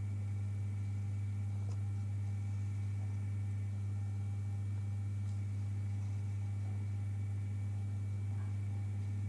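Steady low electrical hum from aquarium equipment running, with faint higher overtones and no change in pitch.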